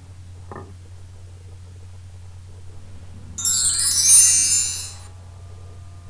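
A bright, shimmering chime sound effect, many high ringing tones together, starting about three and a half seconds in and lasting about a second and a half, over a steady low hum.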